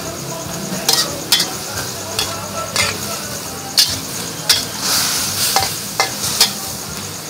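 Pork and vegetables sizzling in a metal wok while a metal spatula stir-fries them, clanking and scraping against the pan about ten times.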